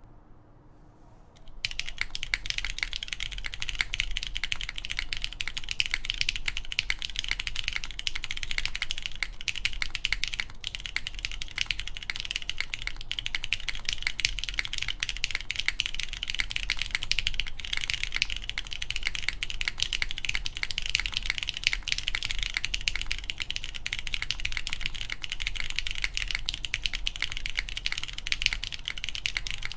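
Continuous typing on a SINGAKBD Kohaku mechanical keyboard with a polycarbonate case, full aluminum plate, GMK keycaps and lubed Cherry MX Brown tactile switches. The keystrokes begin about a second and a half in, after a short quiet start, and then run as a dense, unbroken clatter of key clicks.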